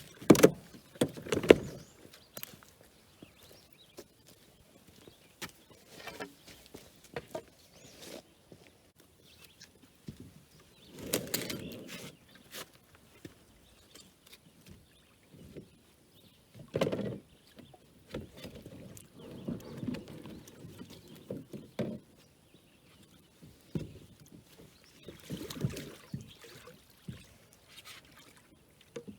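Canoe on the water: irregular paddle splashes and wooden knocks and scrapes against the hull, coming every few seconds rather than in a steady rhythm.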